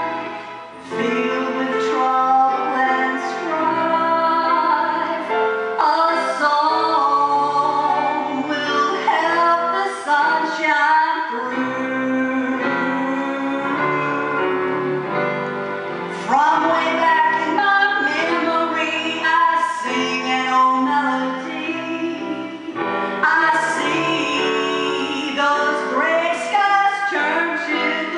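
A woman singing a slow song solo into a microphone over instrumental accompaniment, holding long notes.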